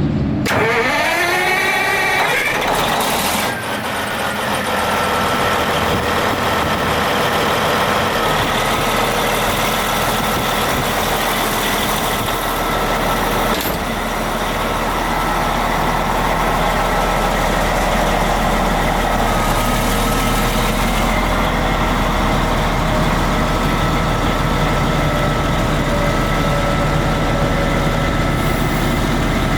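Large diesel engine of a Vermeer TG 7000 tub grinder rising in pitch over the first couple of seconds as it revs up, then running steadily with a high whine on top.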